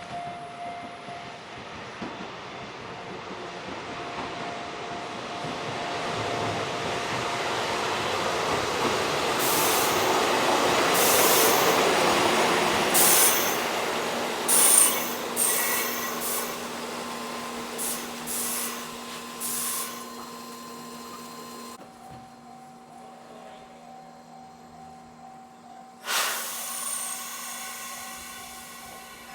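A Hokuriku Railroad 7000-series electric train passing: its running noise builds to a peak about halfway through, then fades as it goes away. Several short, sharp wheel squeals come as it passes the peak, and there is a sudden burst of noise near the end.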